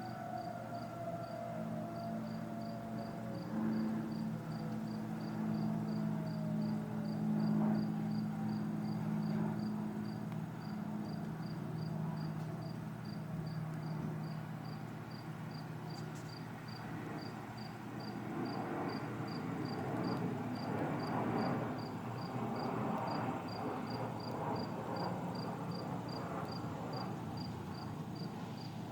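A cricket chirps steadily, about two to three chirps a second, while a distant outdoor warning siren winds down, its tone falling over the first few seconds. A low steady hum runs through the first half.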